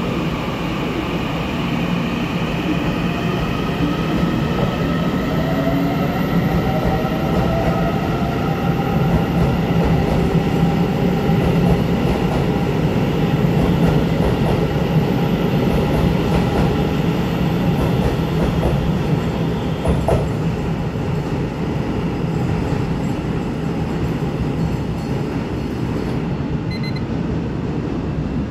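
Taiwan Railways EMU900 electric commuter train (set EMU916) pulling out of an underground station platform and accelerating away. The wheels rumble on the rails under an electric motor whine whose tones rise in pitch as it gathers speed.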